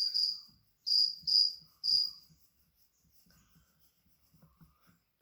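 A cricket chirping, four short chirps on one high pitch in the first two seconds, then it stops.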